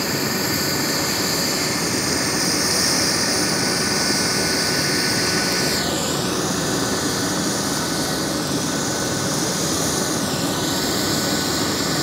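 Eurocopter EC135 twin-turbine helicopter running on the ground with its rotor turning: a steady turbine whine over rotor and engine noise. The high whine dips briefly about halfway through and again near the end.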